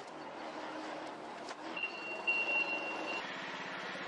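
Forklift warning beeper giving a steady high beep for about a second and a half, with a brief break partway through, over a steady hum of the running forklift and the warehouse.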